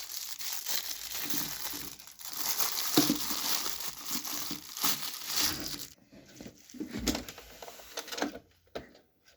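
Plastic packaging crinkling and rustling as it is handled, for about six seconds; after that, a few scattered clicks and knocks of handling.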